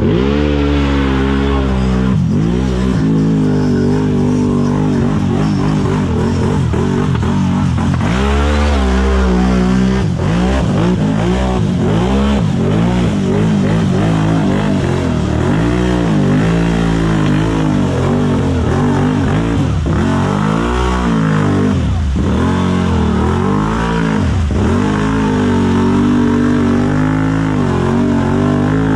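Big-tire unlimited-class mud racer's engine revving hard through a mud pit, its pitch rising and falling again and again as the throttle is worked.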